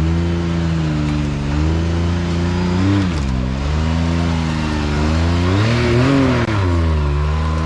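Side-by-side UTV engine revving up and down as the machine climbs a rock ledge, its pitch rising and falling several times and peaking about six seconds in.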